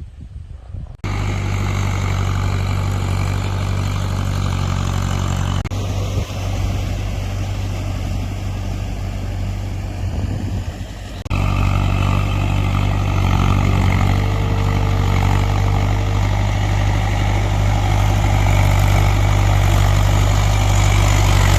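A farm machine's engine running steadily at a low pitch. The sound changes abruptly three times: about a second in, near the six-second mark and near the eleven-second mark.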